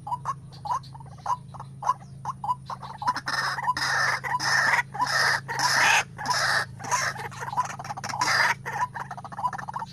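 White-breasted waterhen calling: short clucking notes about three a second, breaking into loud, harsh, croaking calls from about three seconds in, over a steady low hum.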